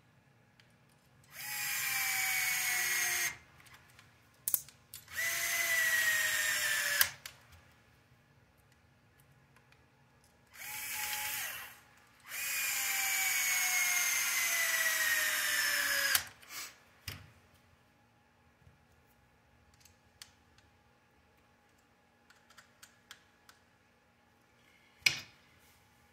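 Cordless power screwdriver with a long hex bit driving screws into the plastic rear hub assembly of an RC buggy, in four runs of a few seconds each, its motor whine dropping in pitch through each run. Small clicks of parts being handled follow.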